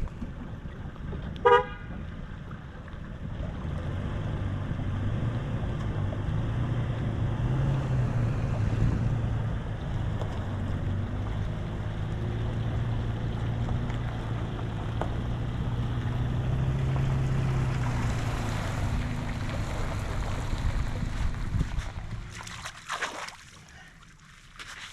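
An engine running steadily with a low hum that swells slightly a couple of times, then stops about 22 seconds in. A short high beep sounds about a second and a half in.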